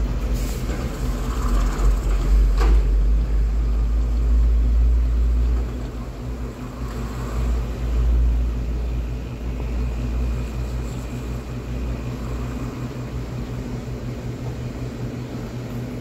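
Chest freezer's refrigeration compressor running with a steady hum just after being switched on, under a heavy deep rumble that eases after about six seconds. A light knock comes about two and a half seconds in.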